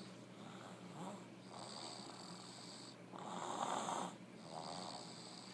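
A person snoring in sleep: about three slow, raspy breaths. The loudest, about three seconds in, lasts about a second.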